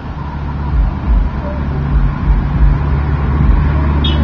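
A motor vehicle's engine running close by with a steady low hum, which grows louder about halfway through.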